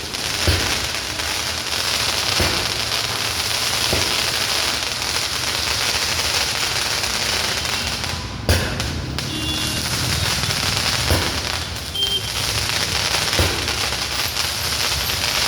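Fireworks going off: a continuous dense crackling, with a louder bang every few seconds.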